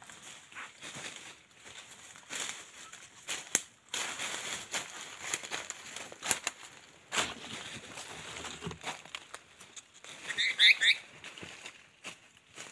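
A bird flapping its wings, with irregular rustling and clicks. About ten seconds in comes a short call of a few quick notes, the loudest sound.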